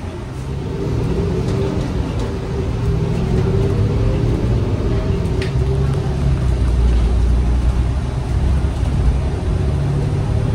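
New Flyer XN35 bus's Cummins Westport L9N natural-gas engine heard from inside the cabin as the bus pulls away and accelerates: a low rumble that grows louder over the first few seconds, with a faint whine running above it.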